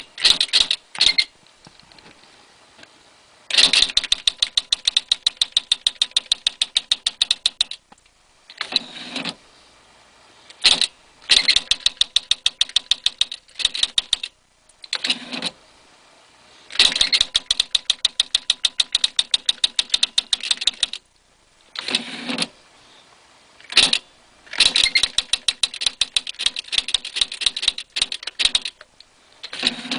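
Smith Corona SD250 electric typewriter typing in long runs of quick, even key strikes, about ten a second. Short rushing sounds come between the runs.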